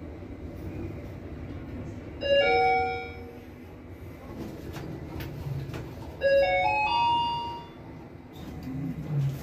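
2007 Sigma IRIS elevator's electronic chime: a short chime of a couple of notes about two seconds in, then a run of several notes stepping upward about six seconds in, over the low steady hum of the moving car.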